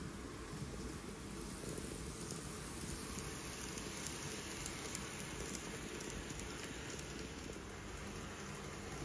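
Model train running along its track, a steady low whirring rattle of motor and wheels.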